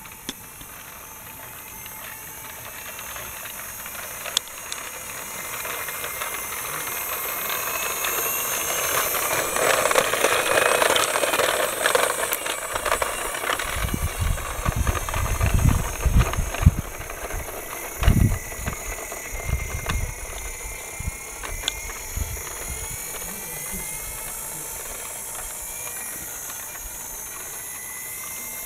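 Toy articulated bus running along a concrete path, a steady whirring rattle with hiss that grows louder as it nears, loudest about ten seconds in, then eases off. Several low thumps come in the middle stretch.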